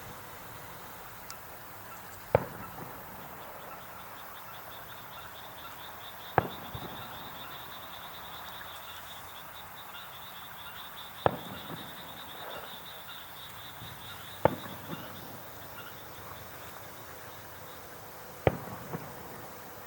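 Fireworks shells bursting: five sharp bangs a few seconds apart, several followed by a short echo. Under them runs a steady high, pulsing trill.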